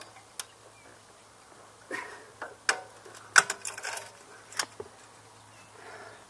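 Sharp metallic clinks and knocks of tools and exhaust parts being handled during work on an ATV exhaust: one shortly after the start, then a cluster in the middle, the loudest about three and a half seconds in.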